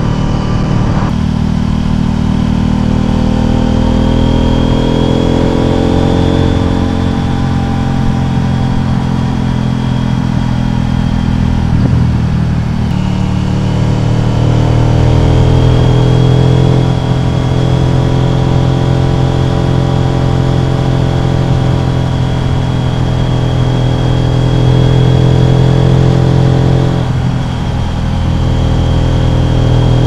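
CFMOTO Ibex 800T's parallel-twin engine running under way through a Leo Vince slip-on exhaust with its baffle removed. The engine pitch climbs over the first few seconds, drops briefly about twelve seconds in, then climbs again and holds steady, with another change near the end.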